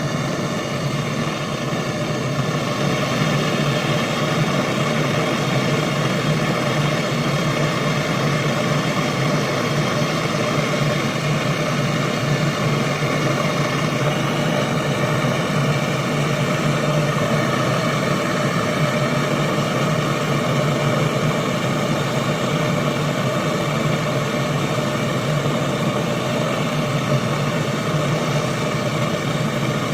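A small electric motor running steadily with a low hum and a set of higher, unchanging tones, typical of the refrigeration work: a running compressor or vacuum pump.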